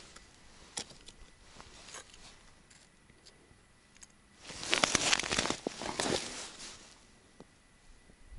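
A couple of seconds of crunching and crackling on icy snow, starting about four and a half seconds in, as an ice-fishing rod is handled and set down beside the hole. A few faint clicks come before it.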